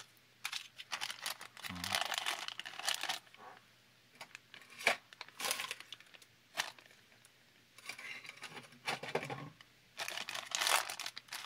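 Thin clear plastic bag crinkling in several bursts with short pauses, as hands open it and work a small figure out of it.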